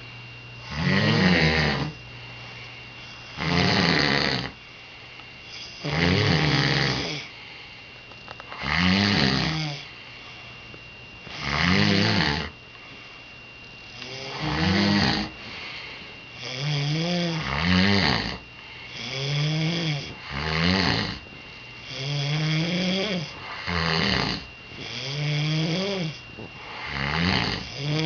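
Snoring: a run of loud snores, about one every three seconds at first. From about halfway they come shorter and quicker, each with its pitch rising and falling, so that the snores sound like talking.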